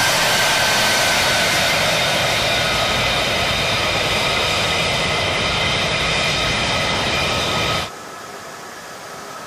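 Single Pratt & Whitney F135 turbofan of an F-35A fighter running on the ground: a loud, steady rush with several high whine tones that slowly fall in pitch. About eight seconds in the sound drops abruptly to a quieter jet whine.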